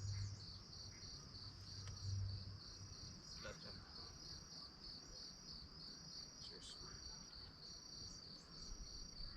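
Insects chirping in a steady, even pulse of high-pitched notes, about four or five a second, with a low rumble in the first couple of seconds.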